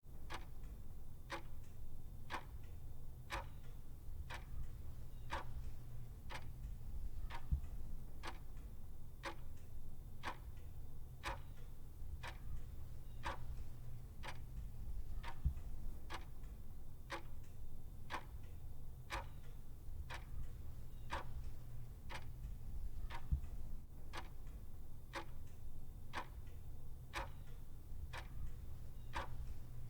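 Clock ticking at a steady, even pace, a little faster than one tick a second, over a low steady hum.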